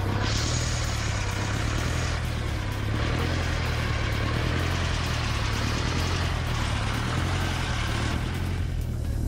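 Air-cooled two-cylinder diesel of a VMZ T-28 tractor running on a stand after an overhaul: a steady low engine drone, with a hissing rush over it that cuts in and out.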